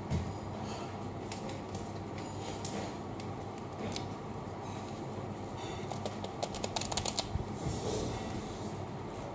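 Small plastic packet crinkling and clicking as it is handled, with a quick run of small crackles about six to seven and a half seconds in, over a steady low hum.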